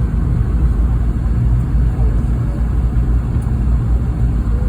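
Steady low rumble of a Boeing 717-200 heard from inside the passenger cabin in flight: engine and airflow noise from its tail-mounted Rolls-Royce BR715 turbofans.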